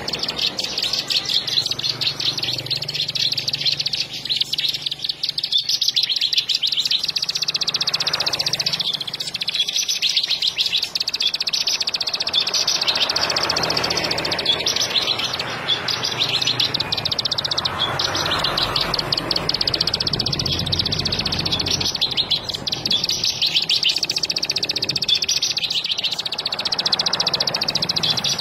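Bar-winged prinia (ciblek) singing: long runs of rapid, high-pitched chirping notes, broken by short pauses.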